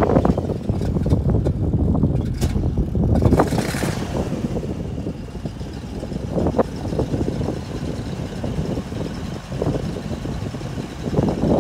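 1975 International Harvester Loadstar 1800 farm truck's engine running steadily, with a short hiss about three and a half seconds in. The dump box starts rising on its hoist in the second half, the engine driving the hoist.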